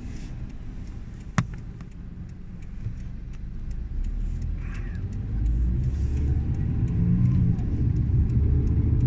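Car engine and road rumble heard from inside the cabin, growing louder and rising in pitch from about four seconds in as the car speeds up. A single sharp click about a second in.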